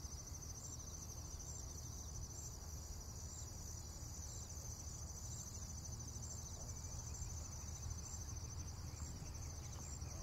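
Faint, steady chirring of crickets, a continuous high trill with a regular pulse, over a low hum.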